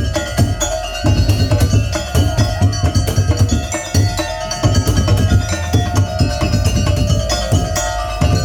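Loud festive band music with a pounding bass-drum beat and busy percussion over a held melody note. The bass beat drops out briefly a few times and comes back in.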